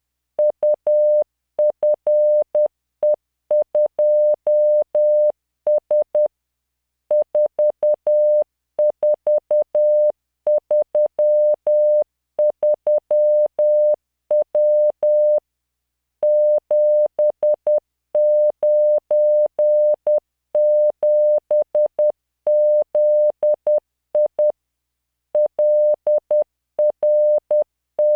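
Computer-generated Morse code: a steady 600 Hz tone keyed in dits and dahs at 10 words per minute. It sends random five-character practice groups, with a short pause about every nine seconds between groups.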